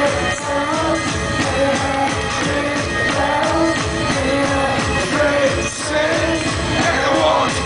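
Hardcore music played loud over a festival sound system: a synth melody of held notes over a fast, pounding beat.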